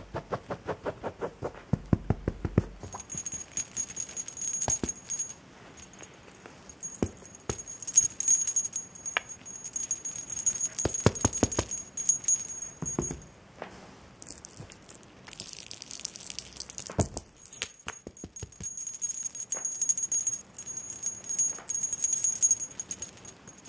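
Small bell in a cat toy jingling and rattling in uneven spurts while a kitten bats it around, with many light knocks and taps.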